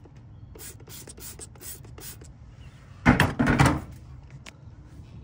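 A series of short hissing squirts, typical of a trigger spray bottle of leak-detection bubble solution being applied to a refrigerant flare joint. About three seconds in comes a louder scuffing burst, in two pulses, lasting under a second.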